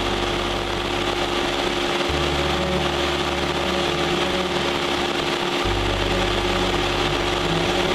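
Cessna 172's piston engine and propeller running steadily in flight, heard from inside the cockpit as a constant drone with a steady hum.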